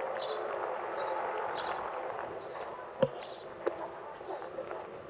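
Footsteps on hard ground at about two steps a second, over a background murmur of people. A sharp knock about three seconds in is the loudest sound, with a smaller one soon after.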